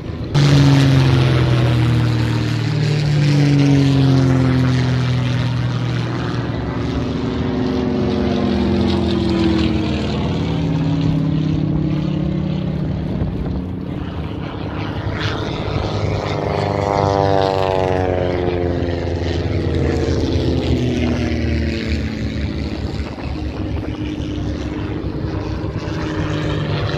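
Propeller-driven display aircraft flying past, the engine note sliding down in pitch as they go by, with a second fly-past more than halfway through.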